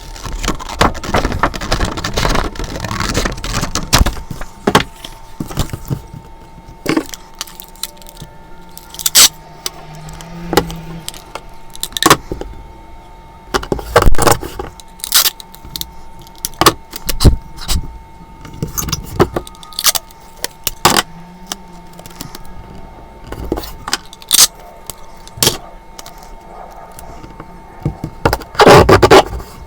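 Mechanical pencil drawing on Bristol paper: short scratchy strokes and scattered taps, with a dense run of scratching in the first few seconds and again near the end. A faint steady whine sits underneath.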